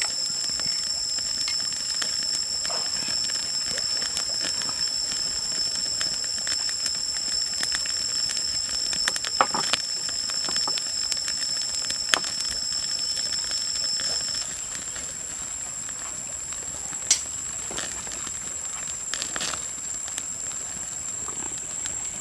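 Steady high-pitched drone of insects, two pitches at once, one of which stops about two-thirds of the way through, over an even hiss with a few scattered sharp clicks.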